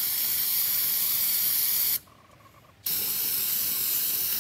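Aerosol can of brake cleaner spraying a steady hiss onto an oily broken part to degrease it; the spray stops for just under a second about two seconds in, then starts again.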